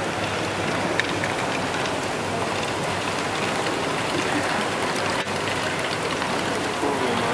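Steady, dense clatter of many small plastic balls rolling and dropping through the motorised modules of a LEGO Great Ball Contraption, with small clicks scattered throughout.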